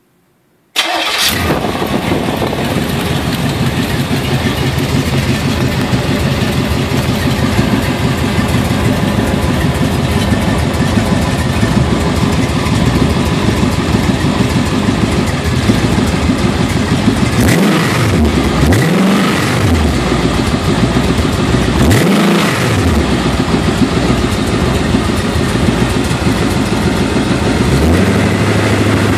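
Test-stand engine, exhausting through a pair of mufflers on its headers, starts about a second in and runs steadily. It is revved briefly a few times about two-thirds of the way through, then settles toward idle near the end.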